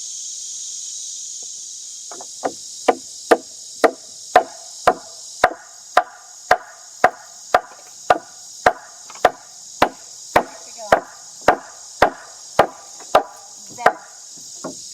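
Hammer driving nails into the wooden floor framing: about twenty sharp strikes in a steady rhythm of about two a second, each with a short ring, starting about two seconds in. Crickets or insects hiss steadily behind.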